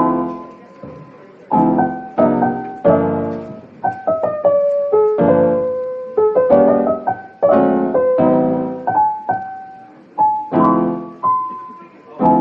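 Background piano music: struck chords and single melody notes that ring and fade.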